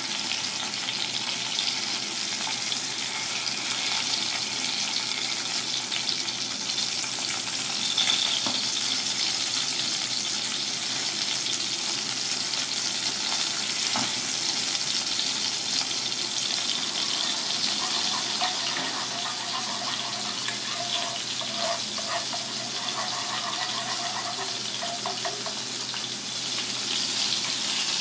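Golden pomfret fillets frying in hot oil in a cast-iron pan, a steady sizzling hiss throughout.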